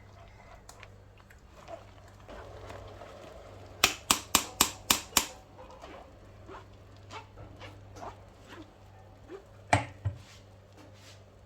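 Six sharp knocks in quick succession, about four a second, then a single knock several seconds later, among small scattered clicks.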